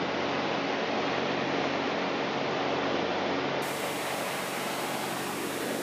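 Steady cockpit noise of a light aircraft in flight: the air-cooled six-cylinder Jabiru 3300 engine and propeller running under a hiss of wind. The sound turns brighter and hissier a little past halfway.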